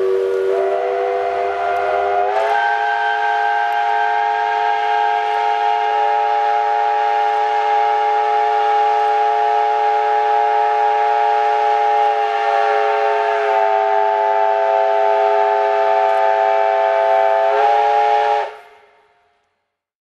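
Steam locomotive chime whistle sounding one long blast of several notes at once, sliding up in pitch as it opens over the first two seconds, then held over a steam hiss. It cuts off about eighteen seconds in.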